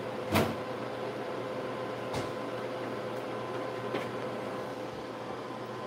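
Kitchen range hood extractor fan running with a steady hum, with a sharp knock about half a second in and two fainter knocks around two and four seconds.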